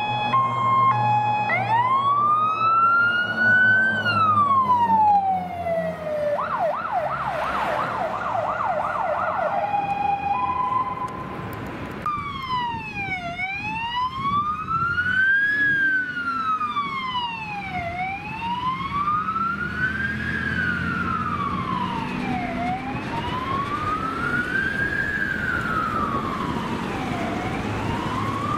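Fire engine sirens on an emergency run. A hi-lo two-tone siren gives way to a wail that rises and then falls, then a short rapid yelp and two-tone again. From about twelve seconds a slow wail rises and falls roughly every four and a half seconds, with a low engine rumble underneath.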